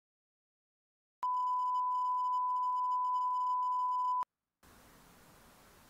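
Broadcast line-up test tone played over a test card: one steady, pure beep at a single pitch, held for about three seconds. It starts about a second in and cuts off sharply.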